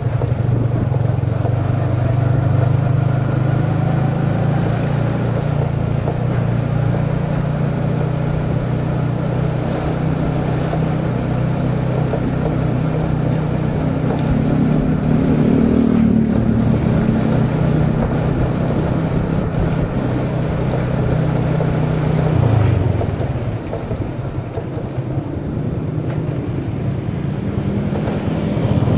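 Motorcycle engine running at a steady cruise with wind rushing over the microphone. About three-quarters of the way through, the engine note drops as the throttle eases off, then rises again near the end as the bike picks up speed.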